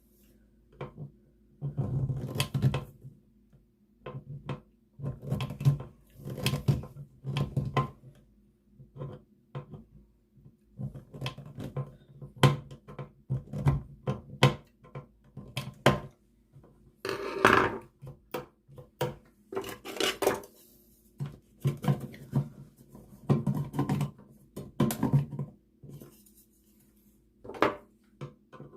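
Irregular clicks, knocks and scraping of a wall toggle switch and its cover plate being pushed and fitted into the wall box by hand.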